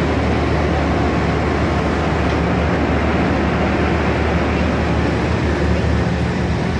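Passenger train carriages rolling along the next track: a steady, loud low rumble that does not rise or fall.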